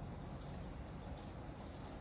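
Steady rain falling, an even hiss with no rhythm or pauses.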